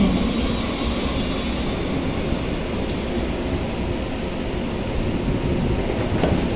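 Muni light rail train coming to a stop at the platform and standing, a steady rumble and hiss. The high hiss drops away about a second and a half in, and a few clunks come near the end.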